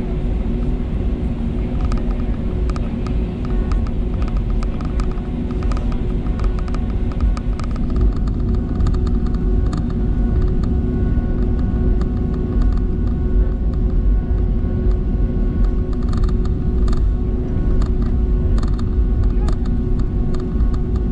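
Steady rumble of engines and airflow inside an Airbus A320neo's cabin, with a few steady hum tones. Many light creaks and clicks from the cabin trim come over it, most thickly from about two seconds in and again in the last few seconds.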